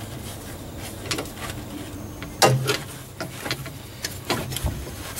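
Scattered clicks and knocks of parts and tools being handled during fuel-line work, with a sharper knock about two and a half seconds in, over a low steady hum.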